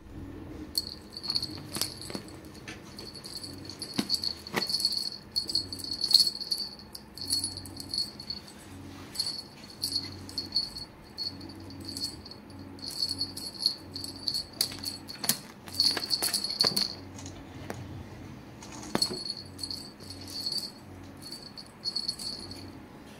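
Cat wand toy with beads jingling and rattling in repeated short bursts as it is shaken and batted by a cat. There are a few sharp clicks along the way.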